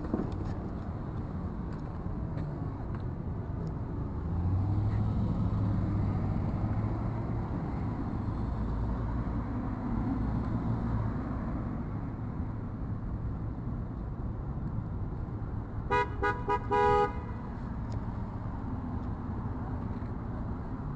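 Road traffic passing steadily, with a vehicle's engine humming louder for several seconds from about four seconds in. Later a car horn honks four quick toots, the last a little longer, a driver's honk in answer to the 'honk for justice' protest.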